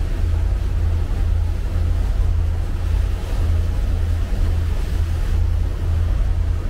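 Motorboat under way, with wind buffeting the microphone: a loud, steady low rumble that pulses unevenly, over a faint rush of water.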